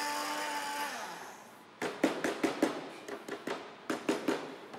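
A small electric blender's motor running steadily, then winding down with a falling pitch about a second in. After that come light irregular taps and clinks, a spoon knocking against a glass as a thick cream is spooned out.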